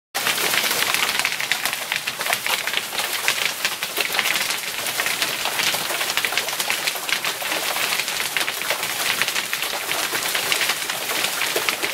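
Hailstorm: hailstones pelting down with rain, a dense, steady clatter of countless small ticks as they strike the wooden porch ramp and the ground.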